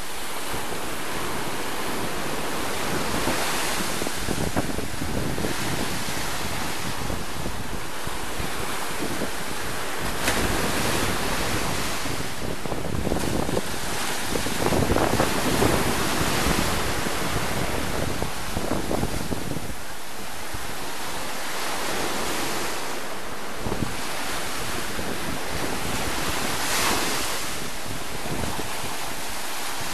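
Small surf breaking and washing up the sand around rocks at the water's edge, a continuous foaming wash that swells with each wave, loudest about halfway through. Wind buffets the microphone underneath.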